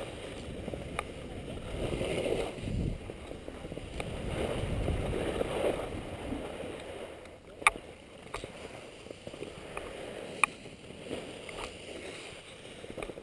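Snow scraping and hissing under a rider sliding down a ski slope, mixed with wind rushing over a helmet-mounted camera, swelling and easing with the turns. Two sharp clicks come through about halfway and again a few seconds later.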